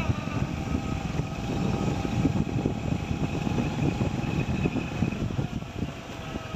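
Motorcycle riding along a rough dirt road, heard from on board: the engine runs steadily under a constant, uneven rumble of wind and road noise.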